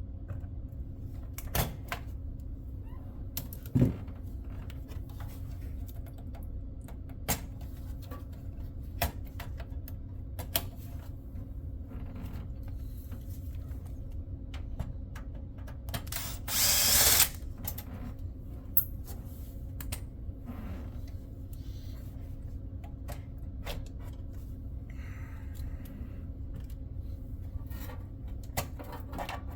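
Scattered clicks and light knocks of hand tools and screws being worked in a computer case, over a steady low hum. One short, louder whirring burst a little past the middle is the loudest sound.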